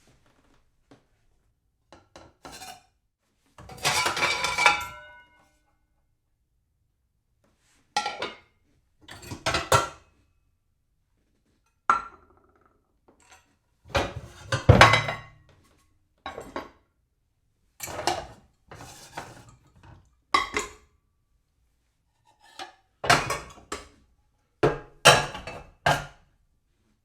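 Dishes being shuffled and stacked: a dozen or so separate bouts of clattering and clinking, each a second or so long with short gaps of silence between, some with a brief ringing tone from the crockery.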